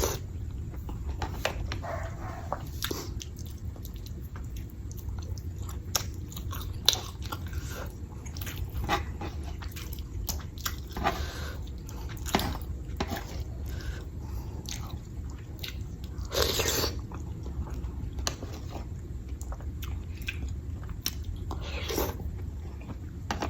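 Close-up eating sounds: chewing and biting, with scattered short clicks and smacks over a steady low hum.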